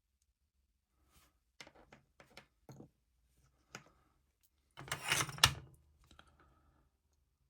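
Small hand tools and parts handled on a workbench: a handful of light clicks and taps, then a louder clatter with one sharp click about five seconds in.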